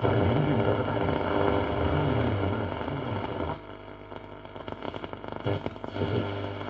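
1939 Mende Super MS216-W valve radio being tuned across the band: a loud jumble of station sound, hum and sliding tones drops about halfway through to crackling static between stations, and a steady low hum comes back up near the end.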